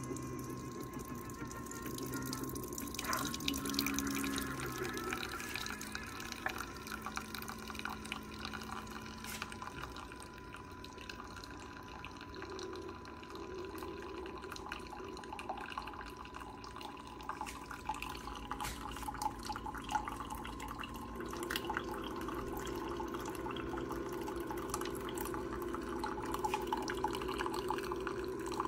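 Coffee maker dispensing, water trickling and dripping into a cup, with a steady thin tone from the machine and small clicks.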